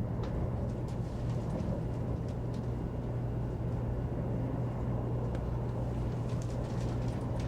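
Cabin running noise inside a 100 series Shinkansen car: a steady low hum under an even rushing sound.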